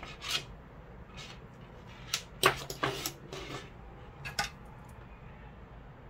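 Short clicks and scrapes of metal test leads, a clip and a tool handled against the metal terminal strips of a supercapacitor bank. The loudest click comes about two and a half seconds in, with a few smaller ones around it.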